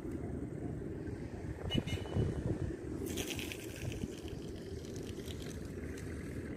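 A spinning reel is cranked briefly about three seconds in, giving a quick run of rapid clicks. Under it runs a steady low rumble of wind on the microphone.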